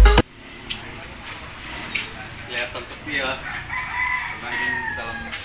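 Background music stops abruptly a moment in. Then a rooster crows, one long call from about four seconds in that sags slightly in pitch at the end, with faint voices around it.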